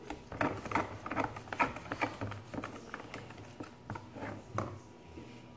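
Plastic spoon clicking and scraping against a small plastic tub while stirring a slime mixture, in quick irregular taps that thin out near the end.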